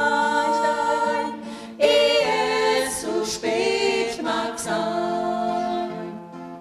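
Small vocal ensemble singing a German song in sustained harmony, accompanied by an acoustic guitar; the phrase ends and the sound drops away about six seconds in.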